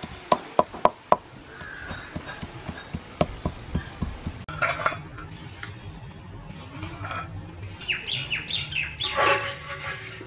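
Whole cardamom pods, cloves and cinnamon cracking under a stone pestle on a wet stone grinding slab (shil-nora): four sharp cracks in the first second and another about three seconds in. Near the end, short bird chirps.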